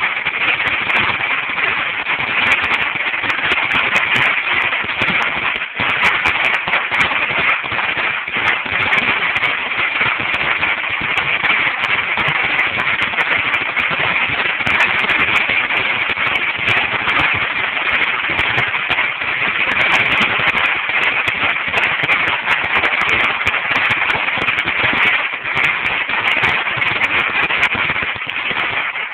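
Dominator 16,000 firecracker strip going off in a continuous, rapid crackle of pops, with no break.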